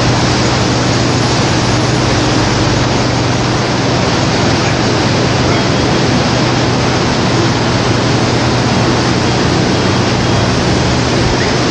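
Steady, loud rushing noise of breaking surf and wind, with a low steady hum underneath.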